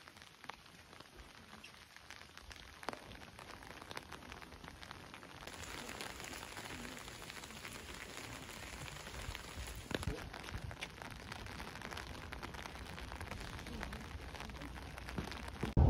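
Light rain falling: a faint, even hiss with scattered ticks of drops.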